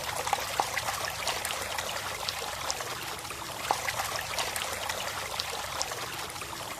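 Water trickling in a steady stream, with many small scattered drips and splashes.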